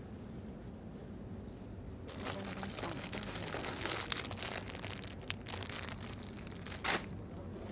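Plastic pasta bags crinkling and crackling as they are handled, starting about two seconds in, with a sharp louder crackle near the end. A low steady supermarket hum lies underneath.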